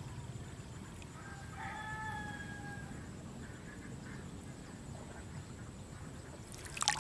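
A rooster crows once, a single drawn-out call beginning about a second and a half in. Near the end comes a short, loud burst of splashing noise.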